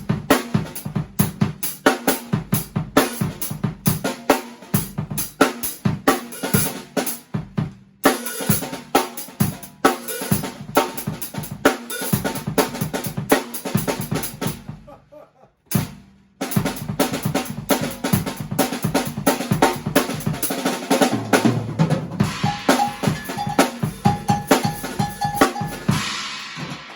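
Music led by a drum kit playing a steady, busy beat, with a brief break partway through and fading out at the end.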